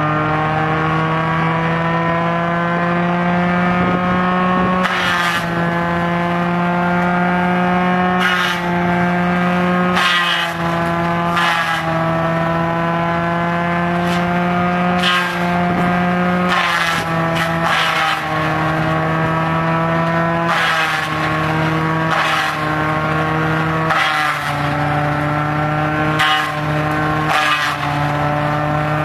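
Tractor-driven chipper-shredder cutting coconut palm fronds: a steady machine whine whose pitch slowly climbs, then sags each time a frond is fed in, with about a dozen short bursts of crunching and shredding as the blades bite.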